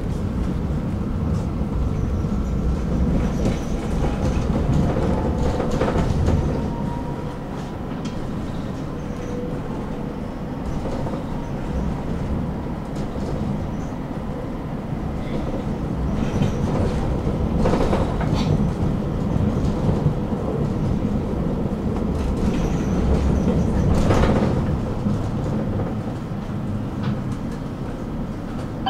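Tram running along its track, heard from on board: a steady rumble of wheels on rails with a faint whine, and a few sharp clacks under the wheels spaced several seconds apart.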